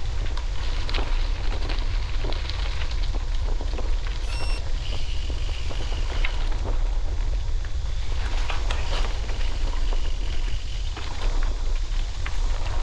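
Wind buffeting the microphone as a steady low rumble, with irregular crackling footsteps through leaves and brush.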